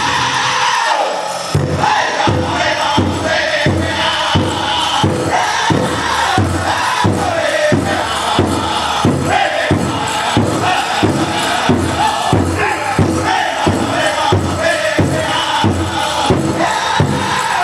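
Powwow drum group singing a chicken dance song in high voices over a steady, hard-struck big drum, about two beats a second; the drumbeat comes in after a short pause about a second and a half in.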